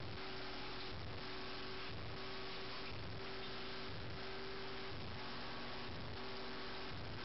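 A steady electrical hum over an even hiss, with a low pulse repeating about once a second.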